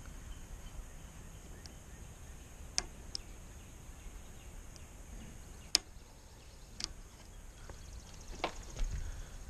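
A handful of sharp, isolated clicks spread through, the sharpest a little before the six-second mark, over a faint low background hum.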